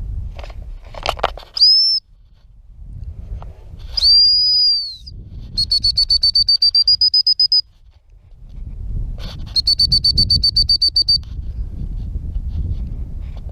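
Gundog whistle blown to a working retriever: a short blast, then a longer single blast, then two runs of rapid, even pips at about seven a second. The single blast is the usual stop command and the run of pips the usual recall.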